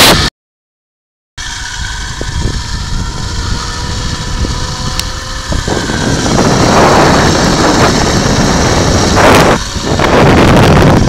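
Zipline trolley running along the steel cable with a thin steady whine and a slowly rising tone. From about halfway, loud rushing wind buffets the microphone. A second of dead silence near the start marks an edit cut.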